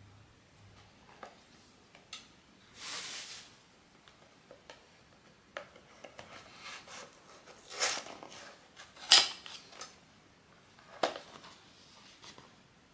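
Handling noises from unboxing a blind-box figurine. About three seconds in there is a brief rustle, then scattered clicks and taps of small hard objects. The sharpest tap comes about nine seconds in.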